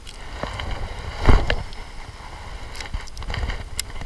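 Clicks and knocks of fishing gear being handled in a small boat, with one heavier thump about a second in, over a low wind rumble on the microphone.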